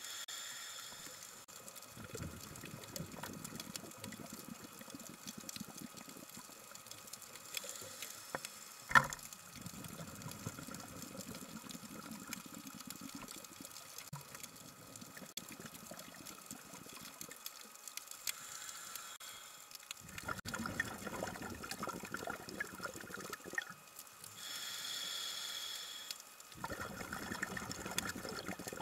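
Underwater bubbling and gurgling from a scuba diver's exhaled bubbles, coming in spells, with a single sharp knock about nine seconds in and a steady hiss for a couple of seconds near the end.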